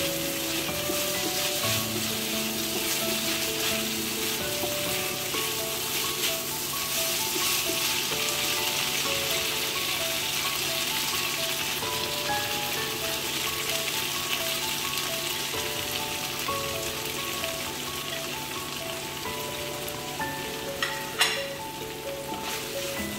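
Tofu and aromatics sizzling in hot oil in a non-stick frying pan as they are stir-fried, a steady hiss over soft background music. A single sharp tap near the end.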